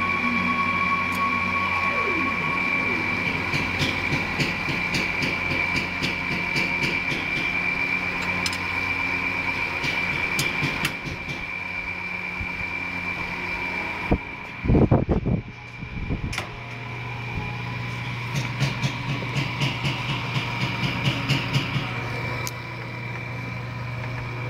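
Daewoo X25D inline-six engine running with a fast, light, rhythmic ticking, and one brief rise in engine sound about two-thirds of the way through.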